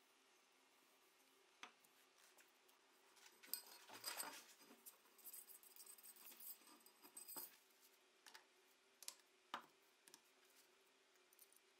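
Faint handling noises of shotgun parts on a workbench: a few light clicks and knocks, with a busier stretch of rubbing and small knocks in the middle, over a low room hum.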